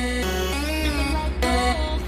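Background electronic music with a melodic synth lead over a steady bass; partway through, the bass pulses rapidly.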